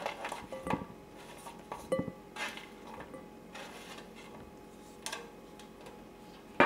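Kitchen utensils and dishes clinking: a handful of separate knocks and scrapes, the loudest and sharpest one right at the end.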